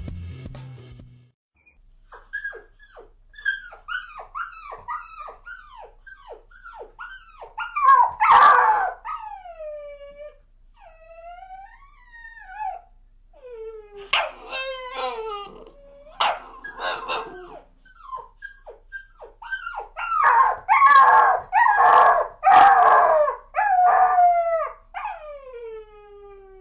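Puppies whining and yelping in a long series of short, high cries that fall in pitch. Louder bunches of yelps come about eight seconds in, and again around fourteen to seventeen seconds and from about twenty seconds on.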